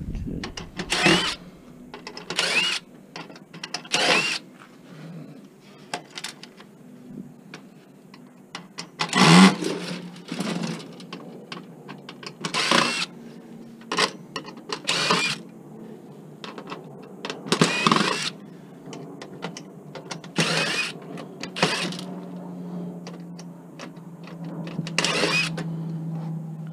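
Irregular metal clanks, rattles and scrapes of a desktop computer being pulled apart by hand for scrap, a dozen or so sharp clatters with quieter handling in between. A steady low hum sets in near the end.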